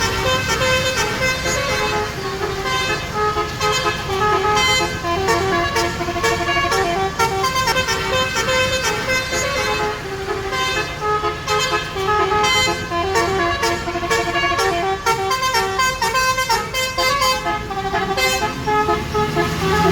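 Basuri multi-tone bus horn (the 'telolet' horn) on an Andaru Utama bus, playing a fast melody of short, quickly changing notes, with the bus engine's low running sound underneath.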